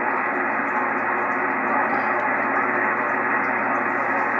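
Steady hiss of band noise from an amateur radio transceiver's speaker, receiving sideband on the 6-meter band between transmissions, with no station clearly heard over it.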